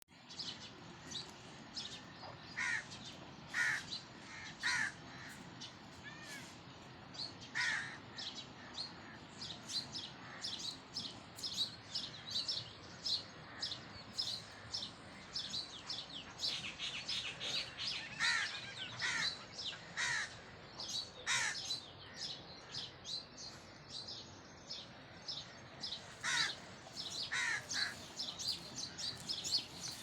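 Birds calling all through: repeated harsh caw-like calls in short groups, over dense, quick chirping.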